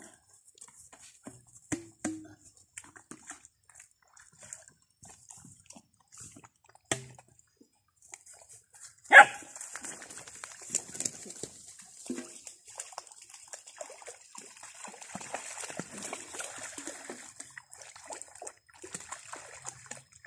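Puppies playing in grass at the water's edge: one sharp bark about nine seconds in, with scattered smaller yips, rustling through the grass and light water sloshing.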